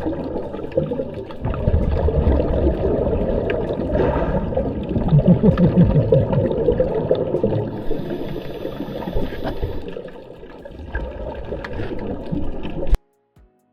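Water rushing and splashing loudly in an uneven churn, cutting off suddenly near the end.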